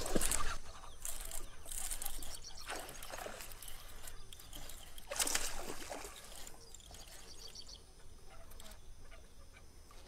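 Water splashing in several short bursts, loudest at the start and again about five seconds in, from a topwater bird lure on the surface and a hooked bass thrashing against the line.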